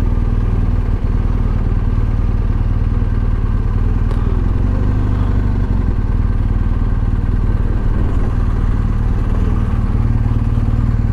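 BMW R1250 GS Adventure's boxer twin running steadily at low revs as the motorcycle rolls at walking pace and slows to a stop.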